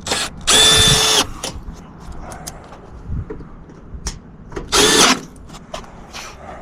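Power drill driving screws into an HVAC unit's sheet-metal access door, in two short runs of motor whine that each wind down as the screw seats, with small clicks and taps of handling between them.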